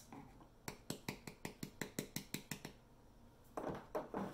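A quick run of light clicks, about six a second for two seconds, then a few softer taps near the end: a jar of Too Faced translucent setting powder being handled and opened.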